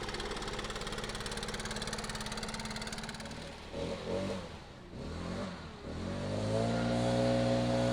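Stihl BR800C backpack leaf blower's two-stroke engine running just after its first start, at a steady low speed at first. Its speed wavers up and down around the middle, then it revs up near the end and holds at a higher, steady pitch.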